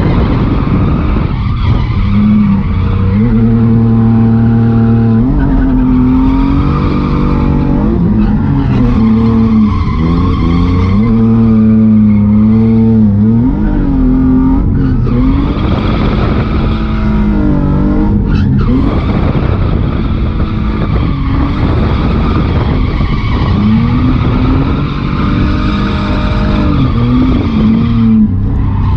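1992 BMW E36 325i's stock M50B25 2.5-litre inline-six, through an ISR blast pipe exhaust, revving up and down over and over while the car drifts. Tyres squeal and skid throughout.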